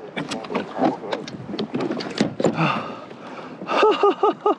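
Irregular clicks and knocks of a freshly landed snapper flapping and being handled in a kayak, then a quick string of four or five short voiced sounds, like a laugh, near the end.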